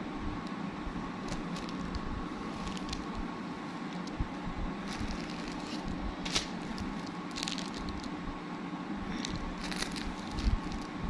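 Clothes being handled, rustling and crinkling, with scattered sharp crackles in the middle and near the end over a steady background hum.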